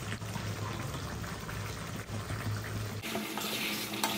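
A curry with bamboo shoot and potatoes cooking in a pan on the stove: a steady watery bubbling and sizzling. A low hum under it stops abruptly about three seconds in.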